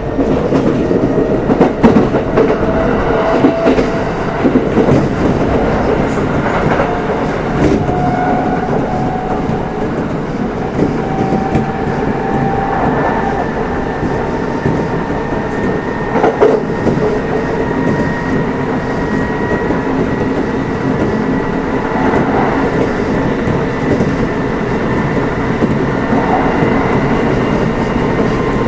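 Running sound heard inside Kintetsu 1259-series motor car Mo 1268: the inverter and traction motors whine in tones that climb slowly in pitch through the first half as the train gathers speed, then hold steady. Wheels click over rail joints throughout.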